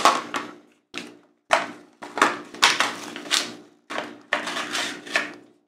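Cardboard-and-plastic blister packaging being torn open by hand: a series of short ripping and crinkling tears, about eight in a row, as the plastic bubble is pulled off its card.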